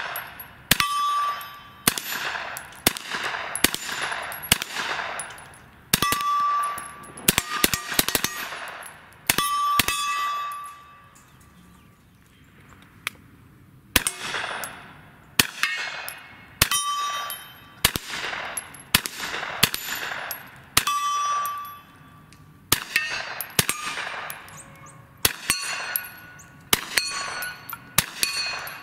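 Ruger PC Carbine in 9mm fired semi-automatic in quick strings of shots, many followed by the short ring of a struck steel target, with a brief pause a little before the middle.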